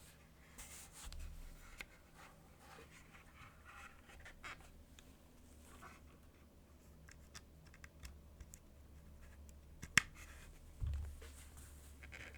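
Dunkin60 60% mechanical keyboard with lubed OP Black switches on an aluminum plate, o-ring mounted, with GMK Cafe keycaps, being typed on: soft, irregular keystrokes, with one sharper, louder clack about ten seconds in followed by a low thud.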